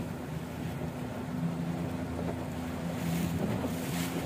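Fishing boat's engine running steadily with a low hum while the boat moves through the water, with a rush of wind and water over it.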